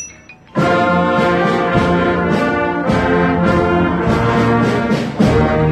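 Wind band of brass and woodwinds playing loudly. After a short ringing click and a brief pause, the full band comes in together about half a second in with sustained chords, and it swells again near the end.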